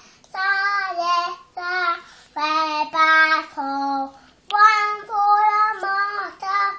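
A three-year-old boy singing a song in a string of held notes, phrase after phrase with short breaths between.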